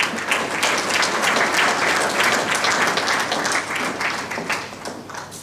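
Audience applauding, a dense patter of clapping that starts at once and tapers off near the end.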